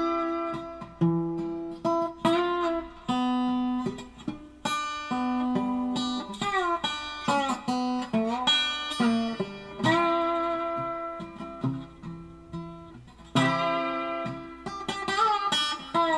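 Background music: an acoustic guitar picking single notes, with many notes sliding up or down in pitch.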